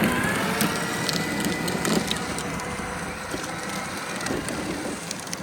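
Children's go-kart running over rough ground, its tyres crunching steadily with scattered clicks, under a faint high motor whine.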